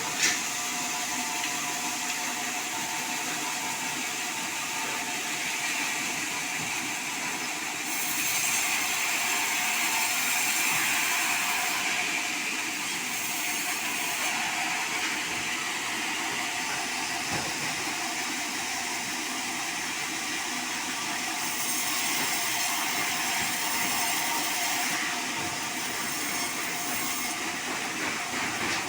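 Band sawmill cutting through a sonokeling (Indian rosewood) log: a steady hissing machine noise, a little louder for a few seconds from about eight seconds in.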